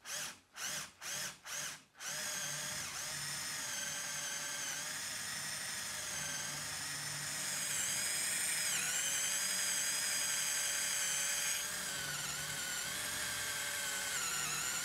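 Electric drill boring into a wood block with a Forstner bit. It runs in short bursts, about three a second, for the first two seconds, then keeps running as a steady whine. The whine grows a little louder in the middle, and its pitch dips briefly as the bit bites.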